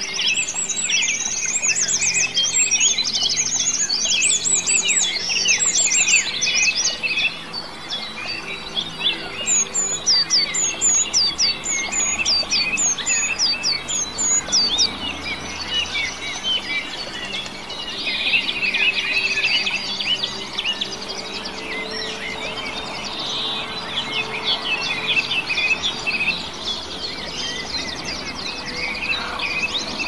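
Songbirds singing in an overlapping chorus of fast, high chirping notes. A separate series of sharp, clear whistled notes comes through for several seconds in the middle.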